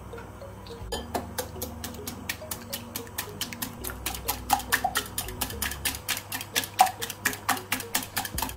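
A metal fork beating eggs in a glass bowl, its tines clicking rapidly against the glass, about four strikes a second at first and faster in the second half. Background music plays underneath.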